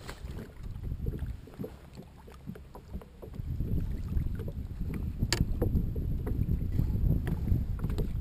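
Wind buffeting the microphone and small waves slapping against a plastic kayak hull, with scattered light knocks and one sharp click about five seconds in.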